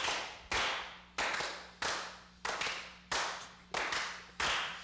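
Several people clapping hands together in a steady beat, about one and a half claps a second. Each clap trails off in an echo.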